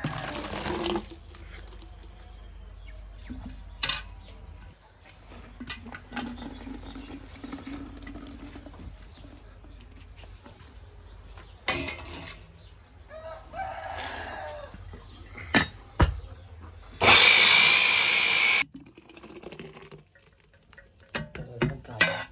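Steel vessels and utensils clinking and knocking during paste preparation, then a loud, steady burst from an electric mixer grinder running for about a second and a half, stopping abruptly.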